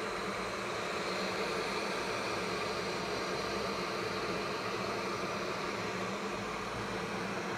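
Glass electric kettle heating water: a steady hiss with a low hum.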